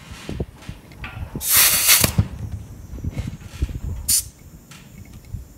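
Compressed air hissing in short bursts as it is bumped into a water-filled fire extinguisher to pressurise it: a burst of under a second about a second and a half in, a brief one about four seconds in, and another starting at the very end, with light handling knocks between.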